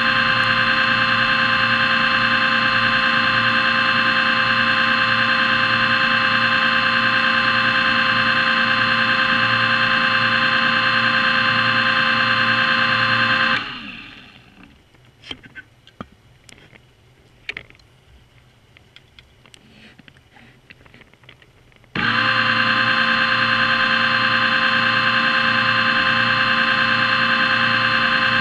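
Underwater scooter (diver propulsion vehicle) motor running with a steady whine, heard underwater. About halfway through it cuts out, leaving only faint scattered clicks and ticks for about eight seconds, then it starts again suddenly.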